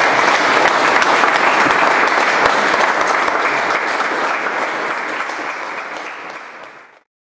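Audience applauding: dense, even clapping that fades over the last couple of seconds and cuts off abruptly about seven seconds in.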